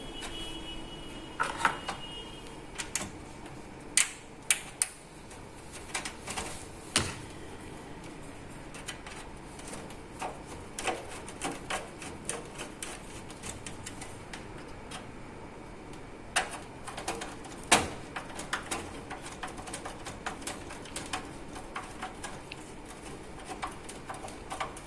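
Irregular clicks, taps and knocks of hands and tools working on a desktop computer case while a power supply unit is fitted, with metal parts and plastic connectors clattering at uneven intervals.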